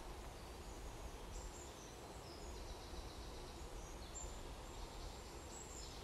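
Faint woodland ambience: distant small birds singing thin, high phrases from about a second and a half in, over a steady low rumble.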